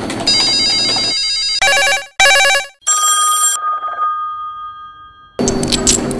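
Electronic telephones ringing: a fast warbling trill, then two short bursts of a pulsed ring, then a steady tone that fades away over about two seconds. Keyboard typing clicks at the very start, and a loud noisy sound cuts in about a second before the end.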